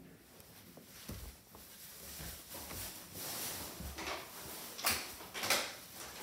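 Soft footsteps on wooden stairs with the rustle of a phone being handled, and two louder rustling bursts near the end.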